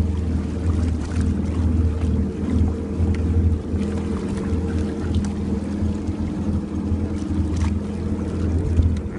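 Motorboat engine running steadily with a constant low hum, along with wind and water noise.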